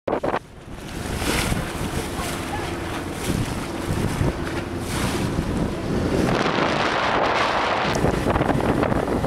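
Wind buffeting the microphone and water rushing and splashing along the wooden hull of a boat under way over shallow water, getting louder about six seconds in.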